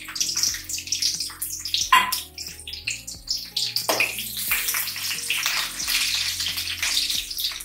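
Chopped garlic sizzling in hot oil in an aluminium kadai, a steady crackling hiss, with a couple of sharp knocks of a metal spoon against the pan as it is stirred, around two and four seconds in.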